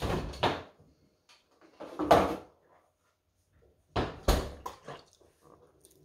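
Kitchen doors being opened and shut: three clunks about two seconds apart, the last a quick double knock.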